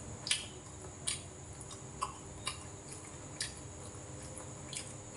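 A man chewing food with his mouth closed, making short, irregular mouth smacks about once a second, over a faint steady high whine in the background.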